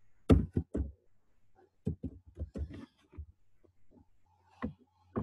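Computer keyboard being typed on: short sharp key clicks in quick runs, then a few single clicks near the end, over a faint steady low hum.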